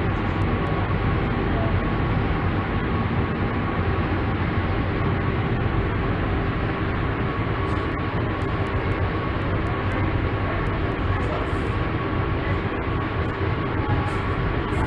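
Steady machinery hum and rushing noise, with a low rumble and two steady tones, one a faint whine, in an aquarium hall. A few faint light clicks sound here and there.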